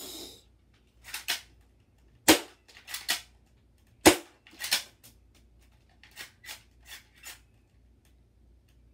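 Spring-powered BB pistol firing at a cardboard shoe box: sharp snapping shots about two seconds in, about four seconds in, and again at the very end. Lighter clicks come between the shots as the slide is pulled back to cock it for each shot.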